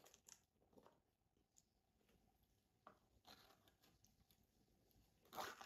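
Near silence, with faint small clicks and rustles of eating kottu by hand and handling a plastic yogurt cup, and a short, louder rustle near the end.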